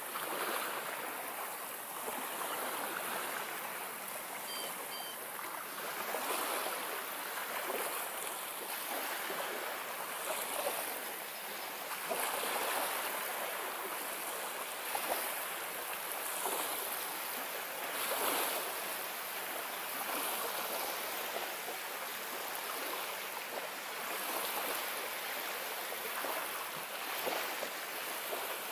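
Small waves lapping and washing onto a pebble beach, a steady wash that swells and eases every couple of seconds.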